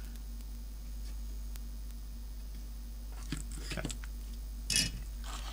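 Steady low electrical hum, with a few brief handling noises, short rustles and knocks, about three seconds in and again, louder, near the end as soldering tools are set aside from the circuit board.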